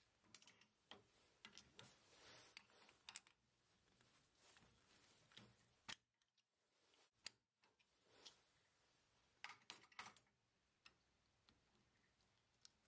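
Faint, scattered clicks and taps at irregular times as hands handle a stopped wood lathe's metal chuck and the small wooden button blank held in its jaws.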